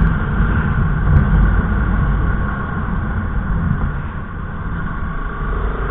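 Motorcycle running under way, a steady low rumble of engine and road noise.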